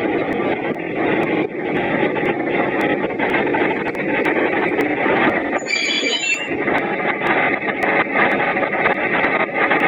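Train running with a steady rumble, recorded through a flip phone's microphone, with a brief high-pitched squeal of metal on metal a little over halfway through.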